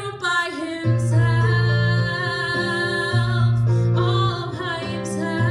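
A female voice singing a pop ballad over sustained chords from a Kawai MP11 digital stage piano. The voice slides down in pitch in the first second.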